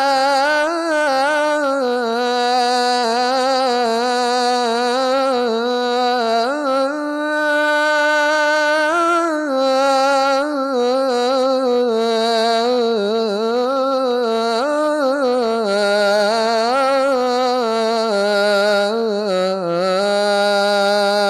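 A man's solo voice chanting the adhan, the Shia call to prayer. He draws out one long melismatic line without clear words, its pitch winding up and down in constant ornaments.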